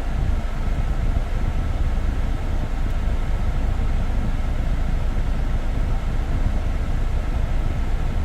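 Kia Grand Carnival's engine running steadily as a low, even rumble, with the air conditioning switched on while its refrigerant is being recharged.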